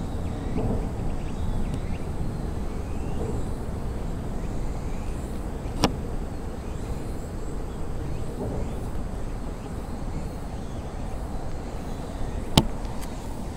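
Steady low outdoor background rumble, with two sharp clicks, one about six seconds in and one near the end.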